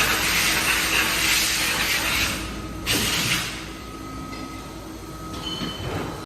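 CNC milling machine machining an aluminium die-cast housing: a steady hum and faint whine under a loud hissing spray that runs for about the first three seconds, comes back briefly, then eases off.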